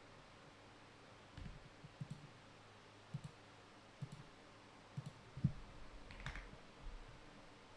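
Faint, irregular clicks and taps of keys being pressed, about eight over several seconds with uneven gaps between them, over a low steady hiss.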